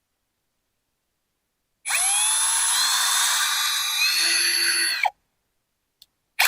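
Electric drill with a 7/16-inch bit boring a hole in a plastic water-filter canister. The motor spins up with a rising whine about two seconds in, runs about three seconds with its pitch stepping up, winds down, and gives a short blip near the end.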